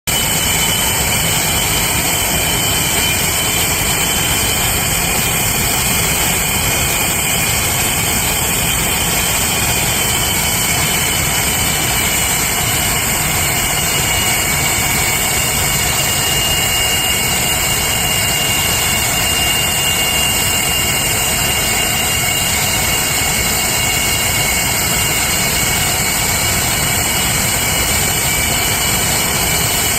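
Jet engines of a Lightning aircraft running steadily during start-up and taxi, a loud continuous rush with a high whine that wavers slightly in pitch.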